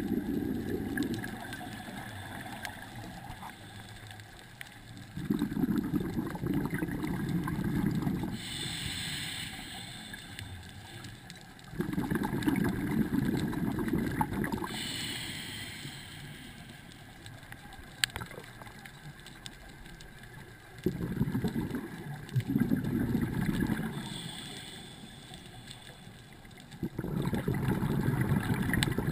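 Scuba diver breathing through a regulator underwater: exhaled air bubbling out in four bursts of about three seconds each, several seconds apart, with a short hiss of inhalation through the regulator between some of them.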